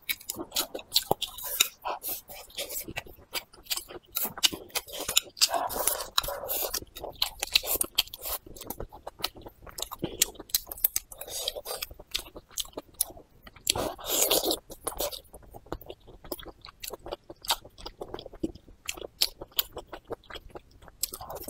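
Close-miked chewing of food, a dense run of sharp mouth clicks.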